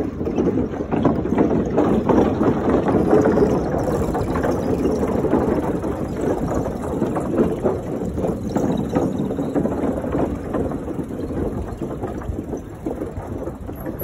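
Steady rumbling noise of a bicycle ride: wind buffeting the microphone and the bike rattling as its tyres roll over a wooden-plank boardwalk, a little louder in the first few seconds.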